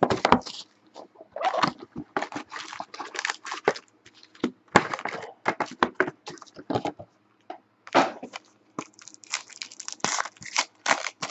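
Foil-wrapped trading card packs and their box wrapping crinkling and rustling as the packs are pulled out of a hobby box and stacked, in irregular crackly bursts with short pauses between.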